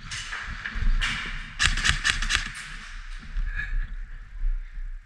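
Footsteps and gear rustling close to a body-worn camera, with a quick cluster of sharp clicks and knocks a little before the middle.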